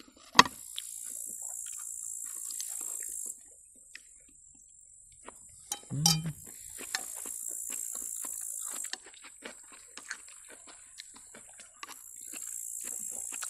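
Insects singing in a high, steady buzz that comes and goes in stretches of two to three seconds, over small clicks of cutlery and chopsticks on plates. A sharp clack of cutlery on a plate comes about half a second in.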